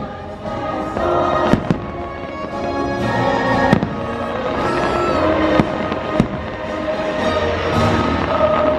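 Fireworks going off over the show's music, with several sharp bangs scattered among the steady tones of the soundtrack.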